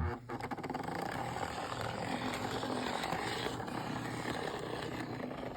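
Postwar Lionel 2032 Erie FA diesel toy locomotive running on its track: its single motor and gears make a steady whir, with a rapid rattle of wheels on the rails.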